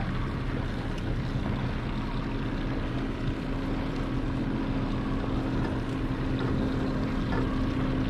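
150-horsepower outboard motor running at low speed, a steady engine hum with water and wind noise; the hum grows a little stronger about three seconds in.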